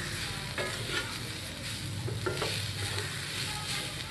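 Wooden spatula stirring roasted sweet corn kernels in a non-stick frying pan, the kernels frying and sizzling softly in the oil, with scattered short scrapes and taps of the spatula against the pan.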